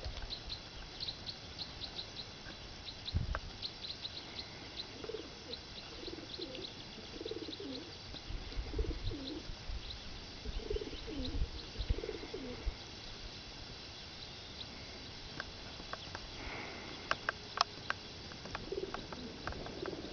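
A dove cooing in repeated low phrases, with small birds chirping high and thin through the first few seconds. A few sharp clicks come near the end.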